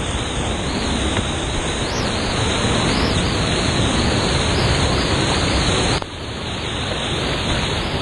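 Loud, steady rushing of a waterfall's water crashing onto the kayak and straight over the camera, an even roar with no distinct strokes. About six seconds in the level drops suddenly, then builds back.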